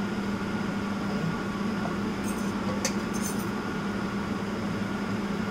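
Boiled moringa leaves being lifted from a stainless steel pot into a ceramic bowl with a wooden spatula: a few light clinks and scrapes from about two to three and a half seconds in, over a steady low mechanical hum.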